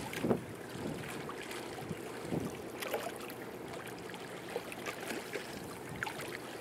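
Wind buffeting the microphone in small irregular gusts over a steady wash of river water lapping at the shore.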